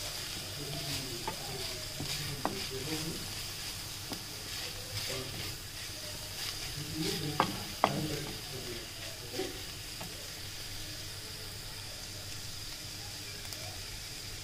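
Cabbage and green capsicum sizzling steadily in a hot pan as they are stir-fried with a wooden spatula, with scraping strokes and two sharp knocks of the spatula on the pan about halfway through.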